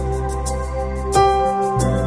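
Background music: held notes over a steady low bass, the chord changing about a second in.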